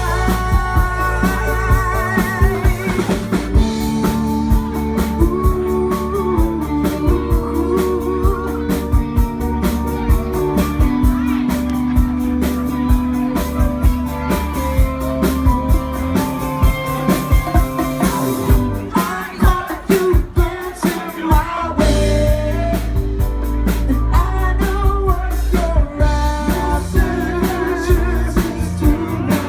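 Live band performing a soft-rock song, with drum kit, guitar, bass and singing. About two-thirds of the way through the bass drops out briefly, then the full band comes back in.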